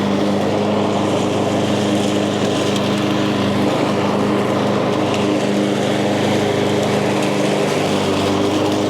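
Echo gas lawn mower's engine running at a steady speed while cutting tall, thick grass and weeds.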